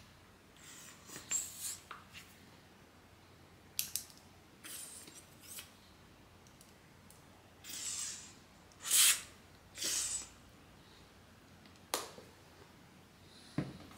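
Plastic mayonnaise squeeze bottle squirting and sputtering air through its nozzle in several short hissing spurts, the loudest about nine seconds in, with a sharp click about four seconds in and another near the end.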